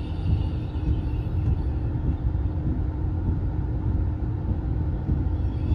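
Passenger train running along the line: a steady low rumble.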